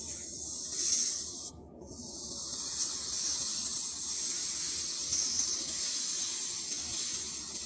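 Cobra hissing: a long, airy hiss that breaks off briefly about a second and a half in, then comes back louder and fades near the end.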